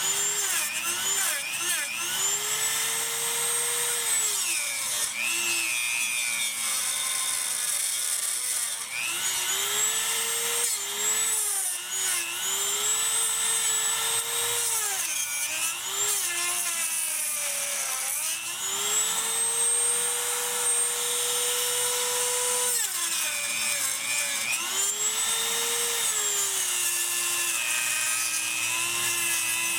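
Dremel rotary tool cutting into a Saturn's plastic intake manifold, its motor whine sagging in pitch each time the bit bites into the plastic and climbing back as it is eased off, over and over. It is cutting away the split section of the plastic manifold behind the coolant hose to repair a water leak.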